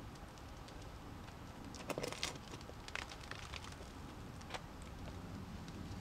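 Scattered scuffs and crackles of a climber's shoes and hands on rock while topping out a boulder, in a short cluster about two seconds in and a few more up to about four and a half seconds in, over a low steady rumble.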